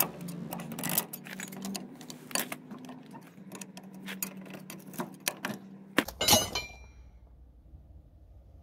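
Metal clinks and taps as the top trunnion cap and pin, with its taper roller bearing, are worked loose and lifted out of a JCB 3CX front axle swivel hub. About six seconds in comes a sharp, ringing metal clank, the loudest sound.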